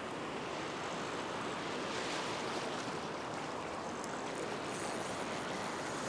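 Small surf waves breaking and washing over a shallow sandy beach: a steady rushing wash of water.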